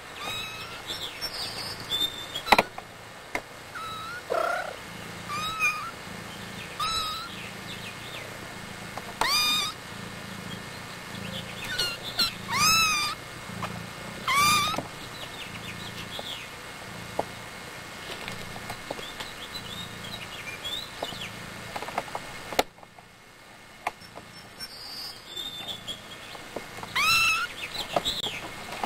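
Young kittens mewing again and again, short high cries that rise and fall in pitch, some of them loud, over a low steady hum.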